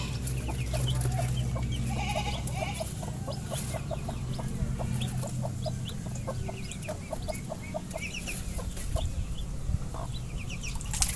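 Chickens clucking repeatedly, with a steady low hum underneath.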